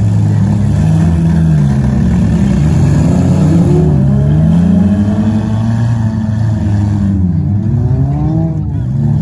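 Several race car engines running together during a race, their pitch repeatedly rising as they accelerate and falling as they ease off, every second or two, over a steady low engine drone.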